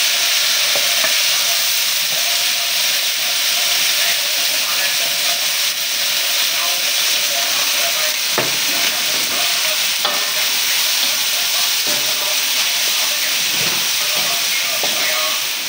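Garlic chives sizzling in hot oil in a metal wok over a gas flame, a loud steady hiss of stir-frying, with a few short knocks and scrapes of a metal ladle against the wok.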